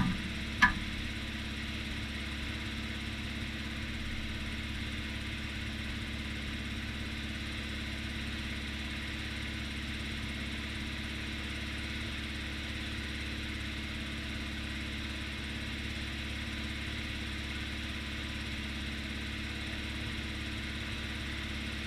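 An engine idling steadily at an even speed, with a single sharp click about half a second in.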